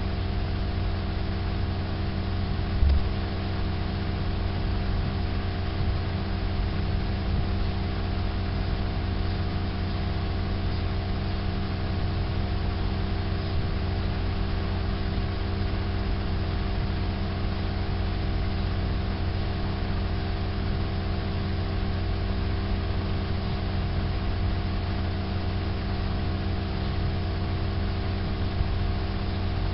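A steady machine hum with several constant tones, like a motor running without change, and one short click about three seconds in.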